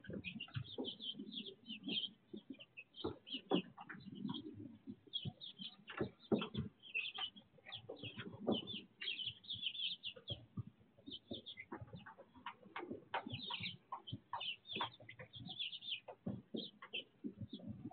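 A brood of young chicks peeping constantly in short, high chirps, with scattered light clicks and taps mixed in.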